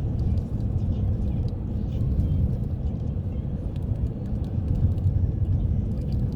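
Steady low rumble of a car's road and engine noise heard from inside the moving cabin, with faint scattered light ticks.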